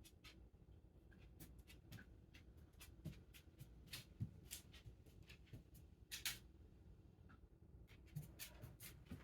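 Near silence with faint, irregular clicks and rustles over a low room hum, one louder click about six seconds in.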